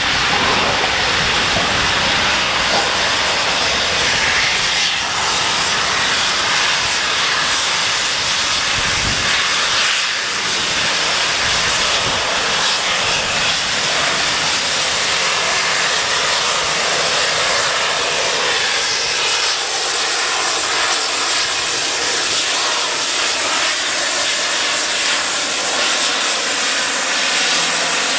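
LMS Princess Coronation Class steam locomotive 6233 'Duchess of Sutherland' running into a station, a steady loud hiss of steam from its cylinder drain cocks over the sound of the train. The hiss grows brighter near the end as the engine draws alongside.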